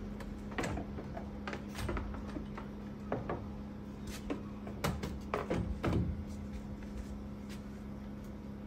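Knocks and clicks of string trimmers being handled, their shafts and plastic housings bumping as they are set back against a wall rack, about seven in a few seconds, the loudest around the middle.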